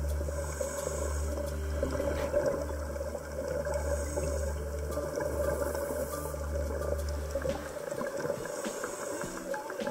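Background music: a sustained low bass note under soft held tones that change pitch in steps, the bass dropping out near the end.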